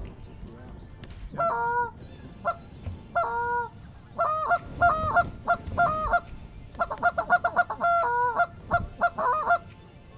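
Loud goose honks: a few single honks, then a quicker run of short honks and clucks about seven seconds in, stopping shortly before the end.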